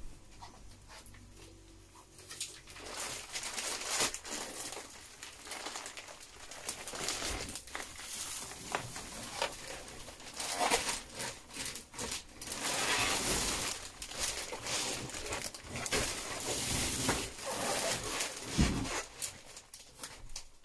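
Thin clear plastic wrapping rustling and crinkling as a rolled, vacuum-packed mattress is unrolled and spread over a slatted bed frame. It starts after a couple of quiet seconds, with a dull thud near the end.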